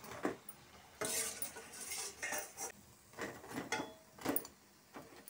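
A steel spoon scrapes and clinks against a stainless steel plate in several short bouts as fried potato vadas are slid onto it.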